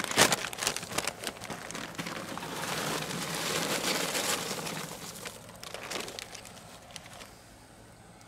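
A paper bag of Match Light charcoal briquettes crinkles as it is tipped out, and the briquettes clatter into the firebox of a homemade steel grill: sharp knocks in the first second or so, then a rushing pour that dies away over the last second or two.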